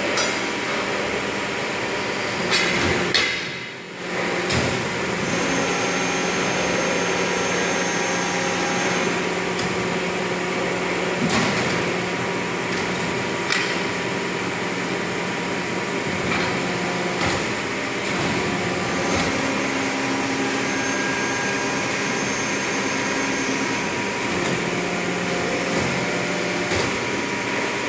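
Aluminium stretch-bending machine running: a steady machine hum, with occasional sharp clicks and clunks from its clamps and cylinders working.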